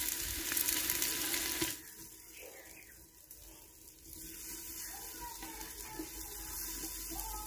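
Onions and green garlic frying in hot ghee in a clay pot: a loud sizzle for the first second and a half or so, then a quieter, steady sizzle that grows a little louder again about four seconds in.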